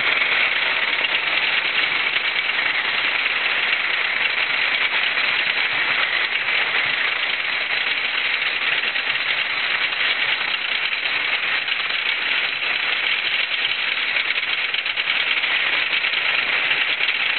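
Wooden roller coaster train running along its track at speed: a steady, loud rushing and rattling heard from a seat in the moving car.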